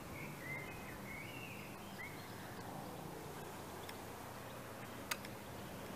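Quiet outdoor background noise with a few faint bird chirps in the first two seconds and one short click about five seconds in.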